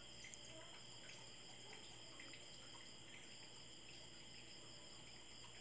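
Near silence: faint room tone with a steady high-pitched whine.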